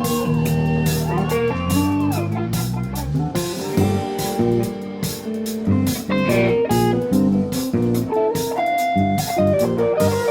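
Live rock band playing an instrumental passage: electric guitar lead with bent notes over bass and a steady drum-kit beat.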